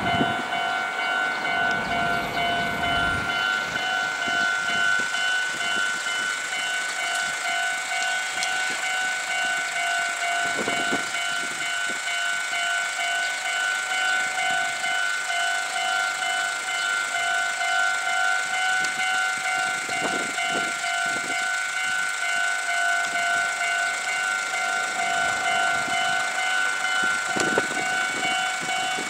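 Japanese railway level-crossing warning bell ringing steadily, an evenly repeating electronic clang: the crossing's alarm, warning that a train is approaching. A few brief low rumbles pass underneath.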